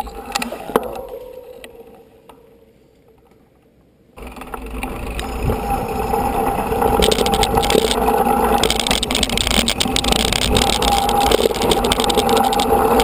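Mountain bike riding over a rough dirt track, heard from the bike: steady rolling noise with rattling and clicking, and wind on the microphone. It starts abruptly about four seconds in, after a quieter stretch that fades away.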